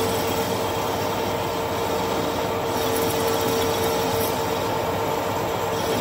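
Metal lathe running steadily while a parting tool cuts into a spinning metal tube, lubricated with plenty of cutting oil: a constant machine tone over the even noise of the cut.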